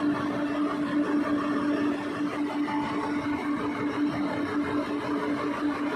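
Excavator running steadily during a lift: a diesel drone with a constant humming tone.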